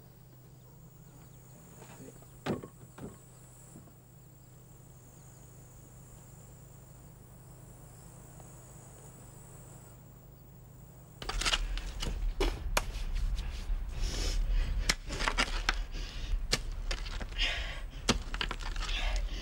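Faint steady insect chirring, with two light knocks about two and a half seconds in. About eleven seconds in the sound cuts to a much louder run of irregular strikes of a digging tool into earth and stones, over a low rumble.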